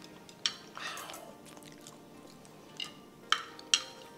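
Chopsticks clicking and tapping against a plate a handful of times as noodles are picked up, the two sharpest clicks near the end.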